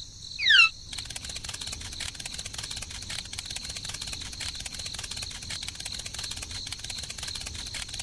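Insects chirping in a fast, even pulse, after two quick falling whistle-like calls just after the start.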